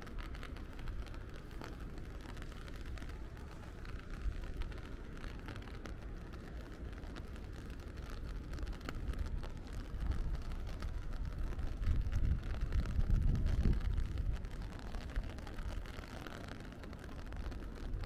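Steady rain with many small drop ticks, and a low rumble that swells and fades between about ten and fourteen seconds in.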